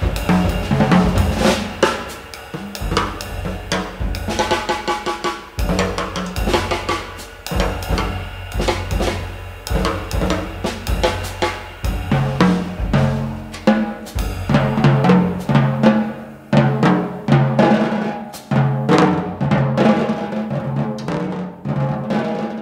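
Jazz drum kit played busily, with rapid snare and tom strokes, bass drum and cymbals. Under it a double bass plays low notes that alternate between two pitches over the second half.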